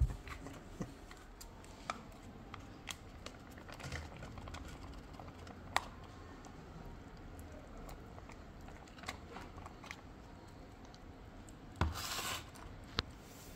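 Plastic wet-cat-food pouch crinkling as it is handled and squeezed out into a plastic tray, with scattered small clicks and taps and one louder crinkling rustle near the end.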